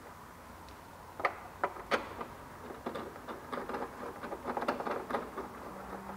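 Small clicks and light rattles of metal spacers being handled and threaded by hand into a Vespa LX scooter's horn cover: a few sharp clicks a second or two in, then a run of quick small clicks.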